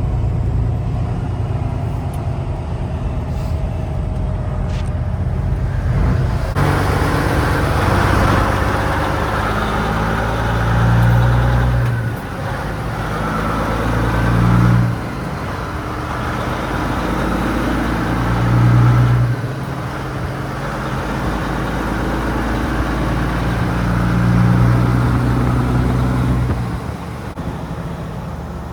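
Motor vehicle engine running, rising and falling in loudness a few times as it is revved or accelerated.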